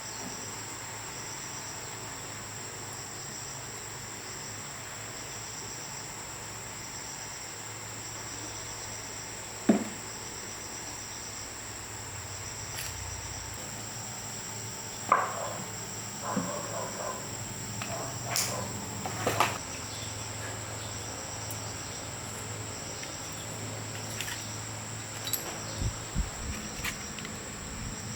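Steady high-pitched insect chirring. A few sharp knocks and clicks sound over it: one loud knock about ten seconds in, and a cluster of knocks and rattles about halfway through.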